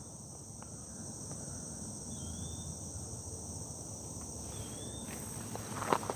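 Steady high-pitched droning of crickets over a low outdoor background hum, with two brief chirps in the middle and a few light knocks near the end.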